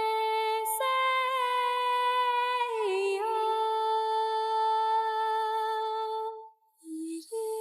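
Background music: a slow, wordless hummed melody of long held notes, dipping in pitch about three seconds in and pausing briefly near the end.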